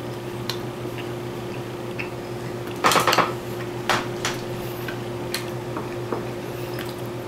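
Steady low hum of a quiet room, broken by a few short knocks and clicks, the loudest a brief clattering cluster about three seconds in, followed by single clicks about a second and two seconds later.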